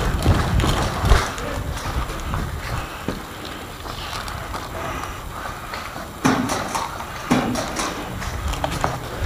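Footsteps and knocks of someone moving on foot, with low rumble on the microphone; two louder knocks come about a second apart near the end.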